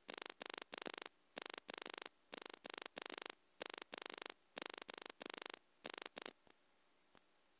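Harsh bursts of hiss-like noise that switch on and off in the rhythm of talking, in place of a voice: speech audio so corrupted that no words come through. The bursts stop about six seconds in, leaving near silence with a couple of faint ticks.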